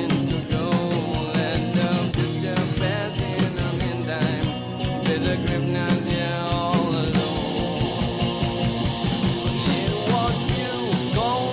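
Rock song with a singing voice, guitar and drums. A fuller, brighter section with more cymbal comes in about seven seconds in.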